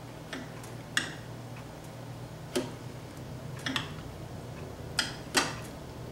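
Metal spoon clinking against glass bowls as sauce and chicken filling are spooned and stirred in them, about six sharp, irregular clinks. A steady low hum runs underneath.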